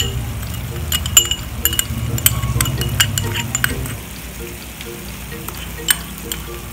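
A metal spoon clinking and scraping against a small ceramic ramekin and a stainless steel pot as sugar is spooned out, in sharp irregular clicks that are busiest in the first few seconds. Soft background music runs underneath.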